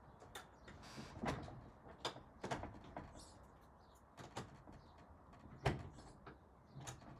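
Shed doors being shut and fastened: scattered clicks and knocks from the latch hardware, the sharpest about five and a half seconds in.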